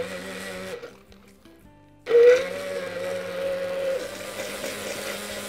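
Stick blender running in a plastic jug, whizzing raw prawn heads with oil and cold sparkling water into an emulsion. It runs briefly, stops for about a second, then starts up again about two seconds in and runs steadily with an even hum.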